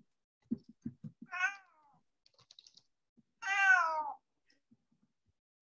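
A cat meowing twice: a short meow about a second in, then a louder, longer one that falls in pitch, with a few soft clicks just before the first.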